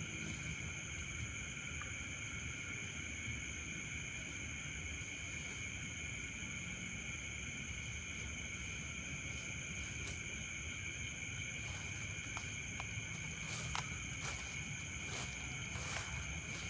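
A chorus of night insects: steady, shrill trilling in several pitches, with a high chirp repeating about twice a second. A few short clicks and knocks come near the end.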